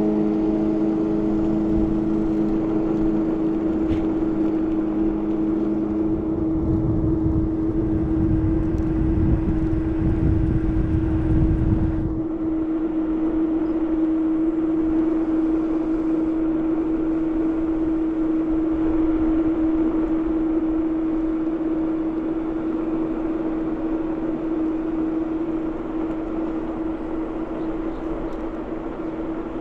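Ninebot Max G30P electric kick scooter's hub motor whining at a steady pitch while riding, over road and wind noise. A louder low rumble joins in from about six seconds in and cuts off suddenly about twelve seconds in.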